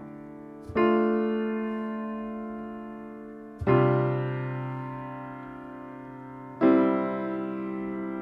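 Background music: slow piano chords, one struck about every three seconds and left to ring and fade. Three chords sound.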